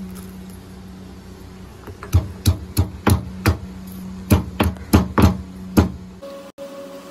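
Stone pestle pounding garlic cloves in a stone mortar: about a dozen knocks, roughly three a second, starting about two seconds in and stopping shortly before the end.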